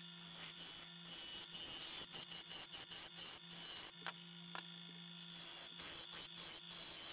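A turning tool cutting a spinning colored-pencil-and-resin bowl blank on a Nova Comet II lathe: a hissing scrape that comes and goes in quick, uneven strokes over the lathe motor's hum.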